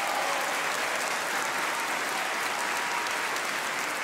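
Large audience applauding steadily, many hands clapping together.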